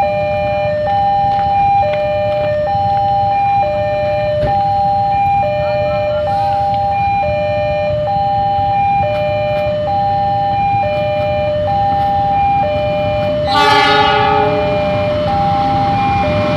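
Railway level-crossing warning alarm sounding its steady two-tone alternation, high and low, switching about once a second. About three-quarters of the way in, the approaching diesel locomotive gives one short horn blast, and the rumble of the oncoming train rises near the end.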